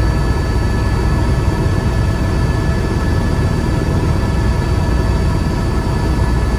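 Helicopter in flight heard from inside the cabin: a steady low rumble of rotor and engine with several faint steady high whining tones over it.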